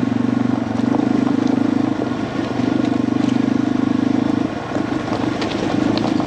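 Yamaha TW200's single-cylinder four-stroke engine running steadily, its note dipping briefly about two seconds in and again around four and a half seconds.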